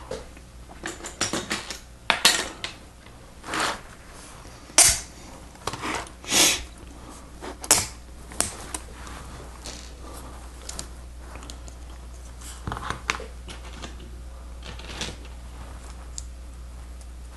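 Plastic Lego Technic pieces clicking and clattering as they are handled. There is a string of sharp clicks and short rattles over the first half, then only a few faint clicks.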